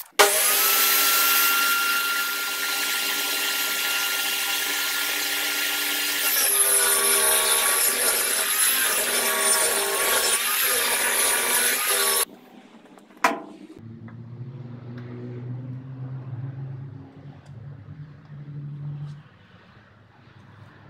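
Table saw running, then cutting a long board: its steady whine sags and wavers in pitch under the load of the cut, and the sound cuts off abruptly about twelve seconds in. A sharp click follows, then a much fainter low hum for several seconds.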